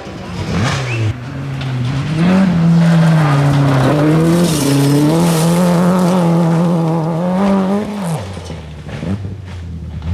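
Rally car engine held at high revs through a gravel corner, its note rising and falling with the throttle, with a hiss of gravel spray over it. The engine note drops away sharply about eight seconds in.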